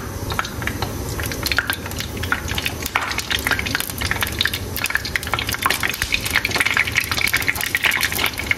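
Vegetarian burger patties frying in hot oil: steady sizzling with dense crackling pops, growing busier about halfway through.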